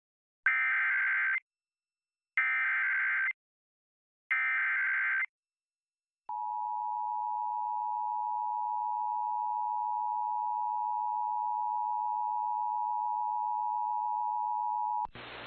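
Emergency Alert System opening sequence: three short warbling SAME data-header bursts about a second apart, then the long steady attention tone, which cuts off abruptly about fifteen seconds in and gives way to hiss.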